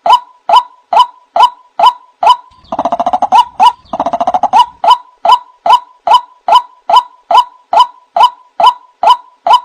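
White-breasted waterhen (ruak-ruak) call played as a bird lure: a loud, evenly repeated croaking note at about two a second. It breaks into two short bursts of rapid chattering about three and four seconds in, then goes back to the steady note.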